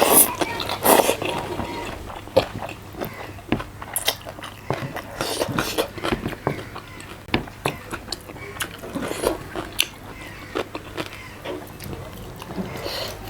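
A person eating close to the microphone: chewing and biting food, with irregular mouth clicks and wet smacks.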